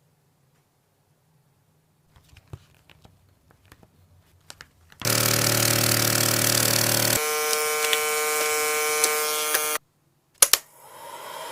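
An electric power tool motor running steadily, changing to a higher steady pitch about two seconds after it starts, then stopping abruptly. A few faint clicks and knocks come before it, and two sharp clicks follow.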